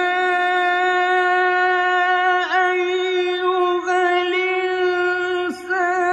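A qari reciting the Quran in the melodic mujawwad style, holding one long drawn-out note with a small dip about two and a half seconds in. Near the end the note breaks off and turns into a short ornamented run.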